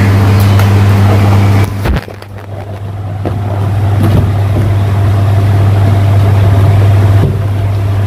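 Loud, steady low electrical hum. It drops out briefly about two seconds in, with a few knocks, then returns.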